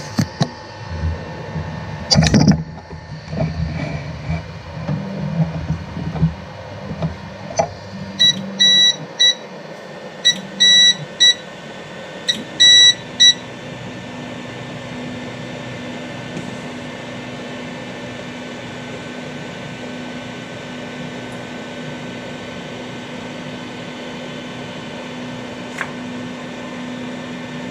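Qidi X-Max 3D printer starting a print job: a few knocks and a sharp click, then three quick groups of short electronic beeps, then a steady fan hum with a low tone.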